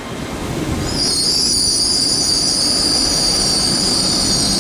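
A train rumbling along the rails at a platform. About a second in, a loud, steady, high-pitched metallic squeal of steel wheels on the rails starts and holds.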